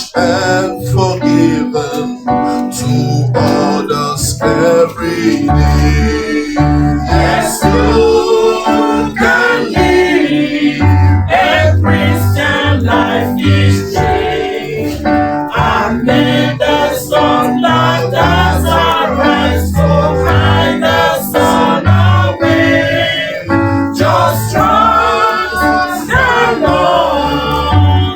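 Gospel choir singing a hymn with band accompaniment, keyboard and a steady beat under the voices.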